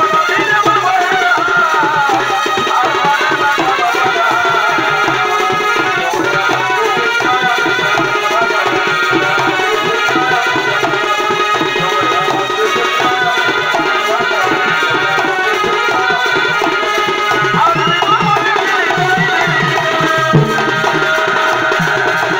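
Live Chhau dance music: a high, wavering melody line over fast, continuous beating on dhol barrel drums and large kettle drums.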